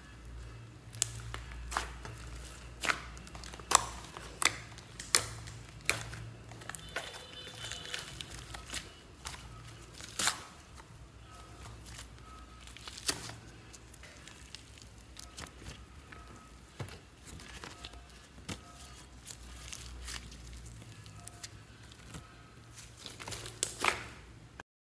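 Thick slime mixed with clay being squished, folded and stretched by hand, with frequent sharp pops and crackles, a cluster of them near the end. The sound cuts off suddenly just before the end.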